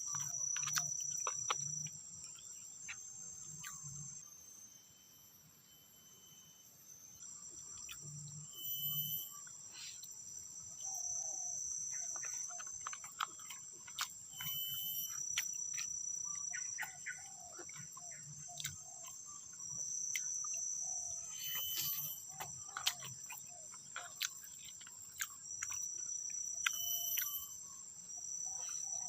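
A chorus of forest insects shrilling in steady, high-pitched tones that start and stop, with scattered sharp clicks and knocks.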